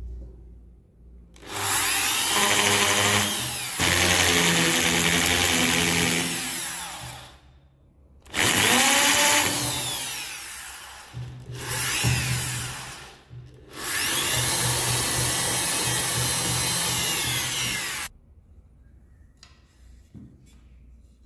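Electric hand drill boring into a wooden stock, run in four bursts of a few seconds each; the motor's pitch rises as it spins up and falls as it stops each time.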